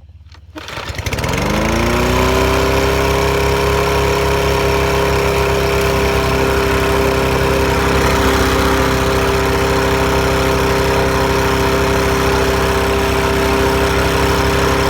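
Snapper self-propelled push lawnmower's engine catching about half a second in and rising quickly to speed, then running at a steady speed.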